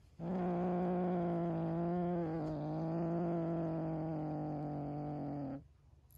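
Kitten growling low and steadily with a fluffy toy held in its mouth, guarding it. One long growl of about five seconds that stops near the end.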